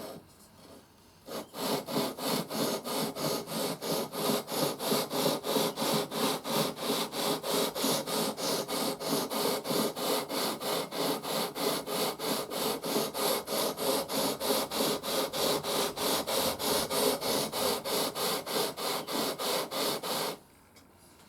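A sanding beam faced with 300-grit paper is rubbed back and forth over a guitar neck's frets to level them. It makes a steady, rhythmic scraping of about three strokes a second, which starts after a second or so and stops suddenly near the end.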